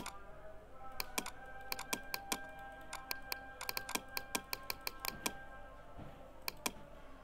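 Irregular clicking of a computer keyboard and mouse, some clicks in quick runs, over faint background music.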